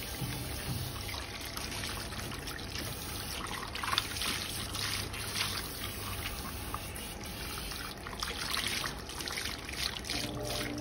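Water spraying from a salon shampoo bowl's handheld sprayer, running through the hair and splashing into the basin as the hair is rinsed.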